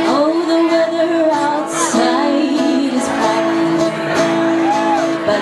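A woman singing a melody with gliding, bending notes, accompanied by an acoustic guitar playing held chords.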